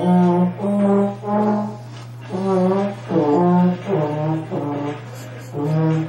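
A baritone horn played in a string of separate held notes, each about half a second long, with a short break about two seconds in.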